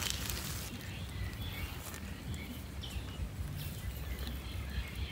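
Outdoor ambience: a steady low rumble with a few short, faint bird chirps scattered through it.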